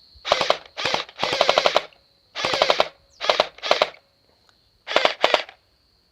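SCAR 168 gel ball blaster firing in short full-auto bursts, its battery-driven gearbox cycling rapidly. There are about eight bursts, most under half a second; the longest, about a second in, lasts about half a second.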